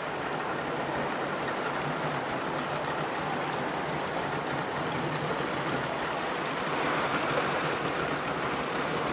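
Steady rushing and splashing of choppy seawater around a boat on the move, a little louder near the end.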